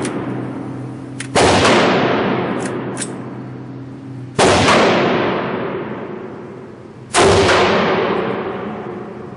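Heavy gunshot-like booms, four of them a few seconds apart, each dying away slowly over about three seconds, with a few faint clicks in between.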